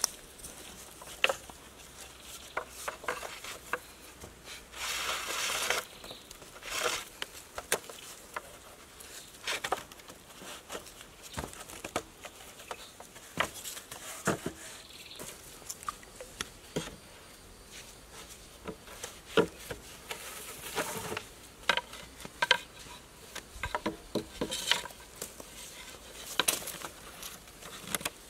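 Scattered knocks, clicks and rustles of bamboo poles being handled and lashed together with a cord, with a longer scraping rustle about five seconds in as the cord is pulled.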